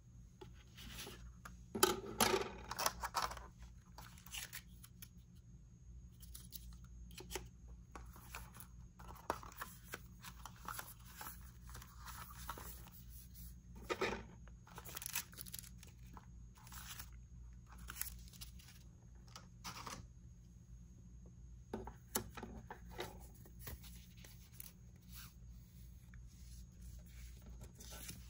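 Packaging being torn and handled: tearing and rustling, with scattered small clicks and taps, busiest about two seconds in.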